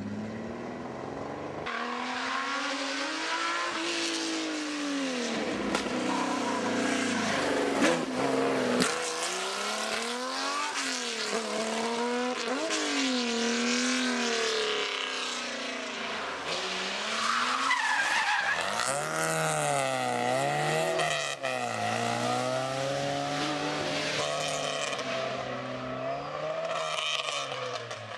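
Historic rally cars' engines revving hard through hairpin bends, several cars one after another. The pitch climbs and drops again and again with each gear change and lift-off.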